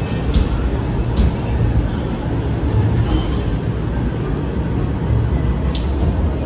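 TTC streetcar running on its rails: a steady, loud low rumble of wheels and motors, with one sharp click near the end.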